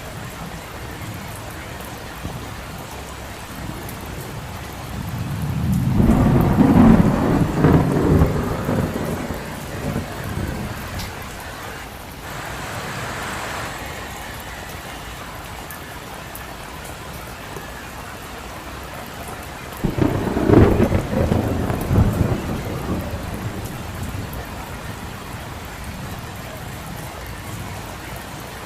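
Steady rain falling, with two loud low rolls of thunder, the first about five seconds in and lasting several seconds, the second about twenty seconds in.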